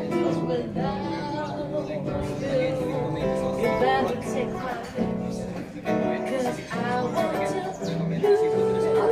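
Live duo: a woman singing into a microphone over a man strumming an acoustic guitar, played through PA speakers.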